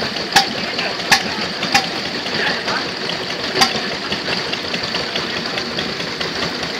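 Vintage single-cylinder stationary engine running light, firing only now and then: a sharp bang about half a second in, then two more under a second apart, another near the middle, then a long gap, over a steady mechanical clatter.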